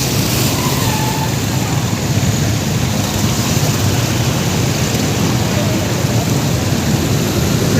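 Motorbike engine running steadily while riding, under a continuous rushing hiss of wind and road noise.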